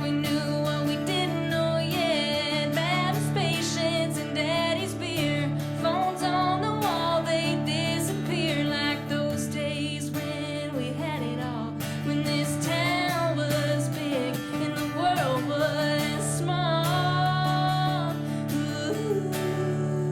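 Live acoustic country music: strummed acoustic guitar under a wavering melodic lead line, with no sung words.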